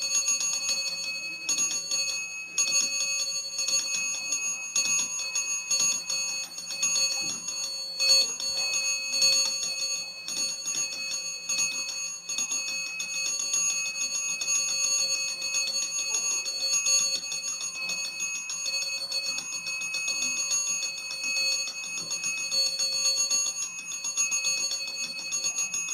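Bicycle bell cap rung continuously by a nut spun on a small DC motor, a fast unbroken rattle of strikes on a steady metallic ring: the homemade fire alarm going off under test.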